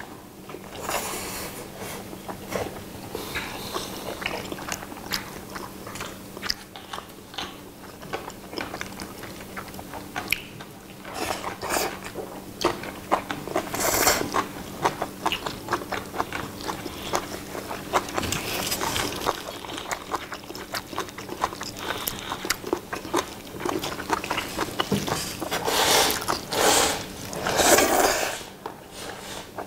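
Two people slurping and chewing jjapagetti (Korean instant black-bean noodles), with loud slurps now and then; the loudest come near the end.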